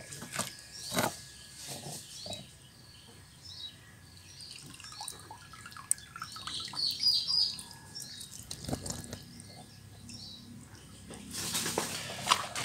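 Water splashing and dripping as a landing net is lifted out of a fish pond, with small birds chirping in the background. A louder stretch of noise starts about a second before the end.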